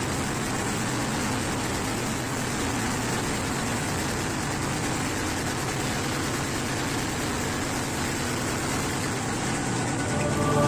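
Steady running noise of a train heard from the driver's cab as it passes through a tunnel, at an even level; music comes in near the end.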